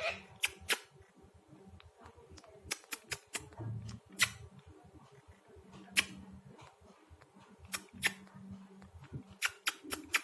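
Sharp clicks or taps at irregular intervals, about a dozen in all, some coming in quick runs of two or three.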